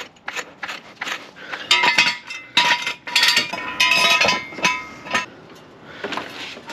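A few regular clicks, about three a second, then loud metal clanks with a ringing tail as a steel jack stand is set in place and adjusted under the car.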